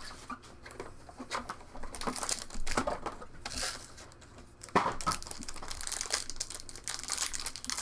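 Foil wrapper of a Topps Chrome trading-card pack crinkling and crackling in the hands as it is handled and torn open, with irregular crackles and a sharper one about five seconds in.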